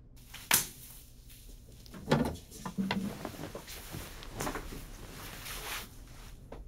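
Papers slapped down onto a table with a sharp knock about half a second in, then a chair knocking and creaking as a man sits down heavily, followed by the rustle of coat fabric as he settles.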